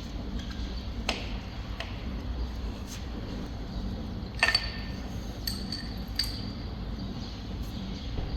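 Metal hand tools clinking as new spark plugs are fitted and done up: about six light, sharp clinks, the loudest a ringing one about four and a half seconds in.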